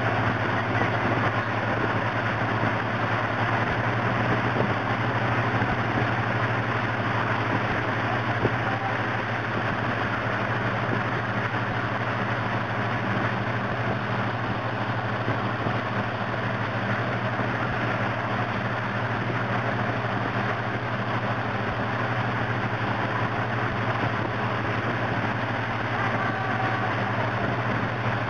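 Steady drone of a motorboat's engine running underway, with the rush of churning water from its wake.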